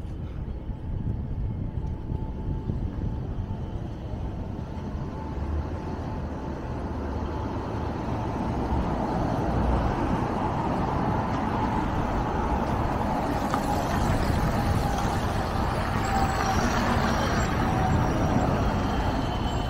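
Road traffic: cars and city buses driving past with tyre noise on the wet road, growing louder in the second half as a bus passes close by.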